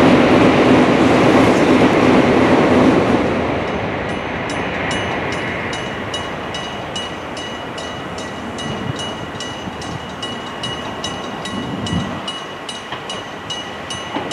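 A loud rushing rumble dies away over the first few seconds. Then a Japanese railway level-crossing warning bell starts ringing steadily, about two dings a second, signalling that a train is approaching.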